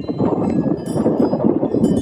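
Wind chimes ringing in gusty wind, struck afresh about a second in and again near the end, over a loud rush of wind.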